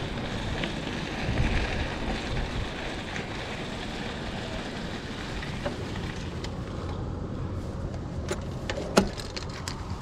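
Mountain bike rolling slowly over a gravel lot: tyre crunch and wind on the microphone. In the last few seconds come a few sharp clicks and one louder clack about nine seconds in, as the bike meets the Yakima hitch bike rack.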